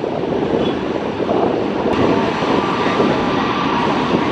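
GE90 turbofan engines of a Boeing 777-300ER running as the airliner rolls along the runway: a steady, dense rumble, with a thin steady whine joining about two seconds in.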